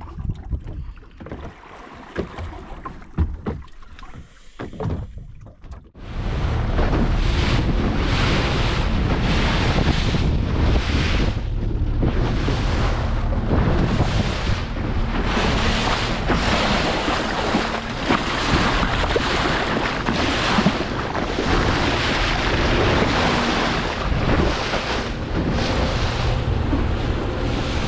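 A few quiet knocks, then about six seconds in a sudden switch to a small open boat running fast over waves: a loud steady rush of wind on the microphone and water along the hull over a low rumble, surging about once a second.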